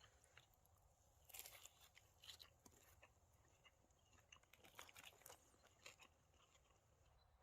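Near silence with faint crunching in a few short clusters: about a second in, around two seconds, and again near five seconds.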